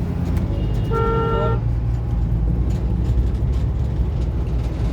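A vehicle horn honks once, briefly, about a second in, over a steady low rumble of engine and road noise in traffic.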